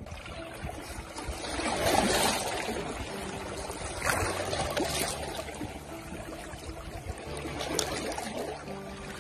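Small waves washing in over rocks at the water's edge, the wash swelling about two seconds in and again a couple of seconds later.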